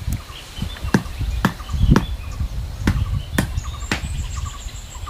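Wooden club knocking on bamboo stakes, about seven sharp strikes at uneven intervals, with birds chirping faintly between them.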